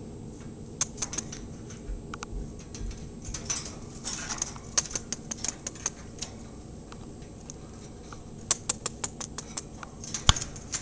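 Peach-faced lovebird making quiet clicking and smacking noises with its beak, its kissing sound: scattered short clicks, some in quick runs, with one louder click near the end.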